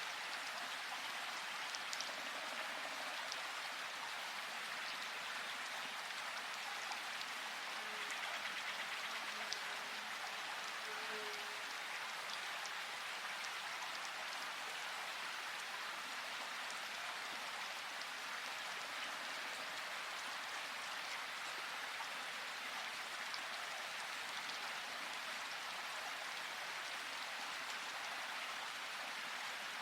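Steady rain falling in a forest: an even hiss with scattered individual drops ticking, and a few faint low tones about eight to eleven seconds in.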